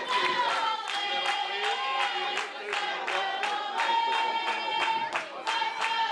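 Group of football supporters singing a chant in long held notes while clapping a steady beat, about two to three claps a second.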